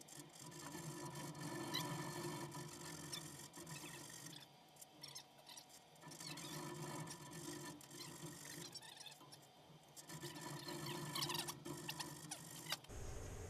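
Hand hacksaw sawing through the brass relief-valve thread left in a water heater's fitting, a rasping back-and-forth in three bouts with short pauses between.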